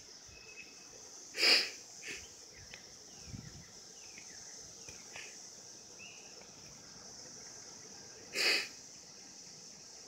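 Periodical cicada chorus, a steady high-pitched drone, broken twice by a short, loud burst, once about a second and a half in and again near the end.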